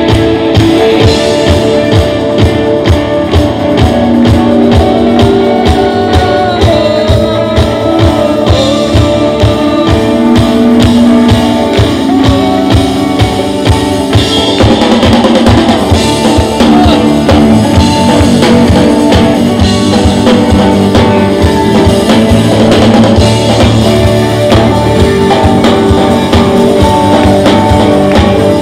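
Live worship band playing an upbeat song: strummed acoustic and electric guitars over a drum kit keeping a steady beat.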